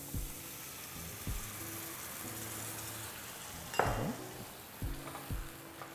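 Sauce of ginger, garlic, onion and fermented black beans sizzling in a hot oiled frying pan as chicken stock goes in, with a few short knocks of a spatula against the pan.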